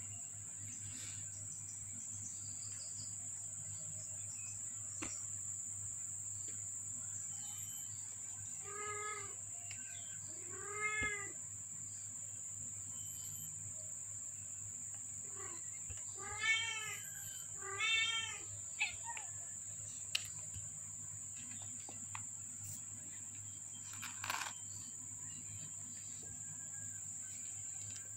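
Five-week-old kittens mewing: four short, high mews that each rise and fall in pitch, two about a third of the way in and two louder ones past the middle, over a steady high-pitched tone.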